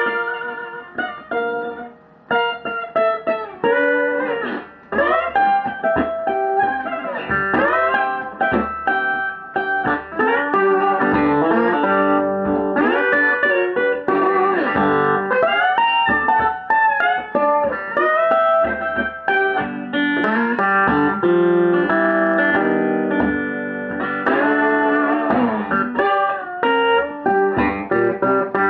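Stratocaster-style electric guitar improvising blues lead lines, with many notes bent upward in pitch.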